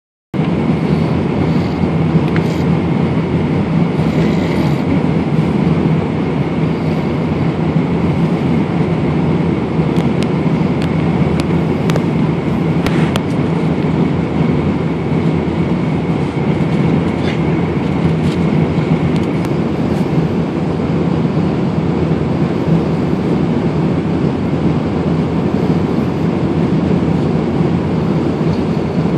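Steady drone of an airliner cabin in flight, the engines and rushing air making an even, unbroken noise.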